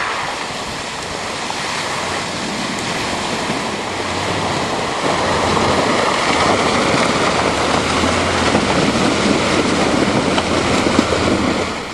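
A pickup truck driving through mud and water, its engine running under load under a steady rushing noise that grows louder, with a low engine drone coming up about halfway through.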